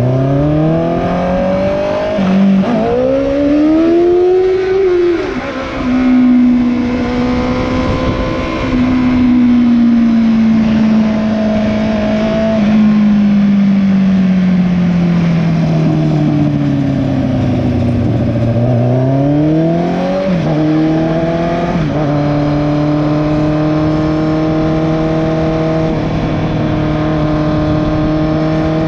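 Motorcycle engine with an exhaust leak, accelerating hard for a wheelie, its pitch climbing steeply over the first few seconds. The revs then hold and sag, climb again about twenty seconds in, and settle to a steady cruise.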